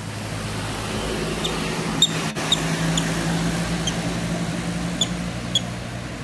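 A vehicle engine running steadily, a low hum, with about seven short high squeaks scattered through it.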